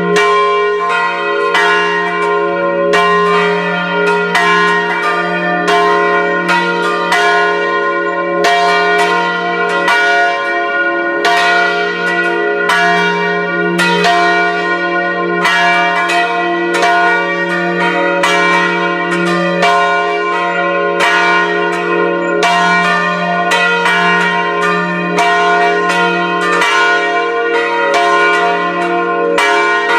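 Catholic church bells ringing a continuous Christmas peal: several bells of different pitches struck one after another, about three strikes every two seconds, their tones ringing on and overlapping into a steady clangour.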